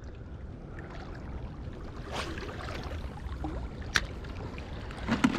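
Sea water washing against breakwater rocks with wind on the microphone, a steady noise, and one sharp click about four seconds in.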